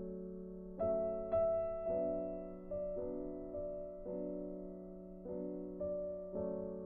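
Soft background piano music: slow chords and notes struck every second or so and left to ring and fade.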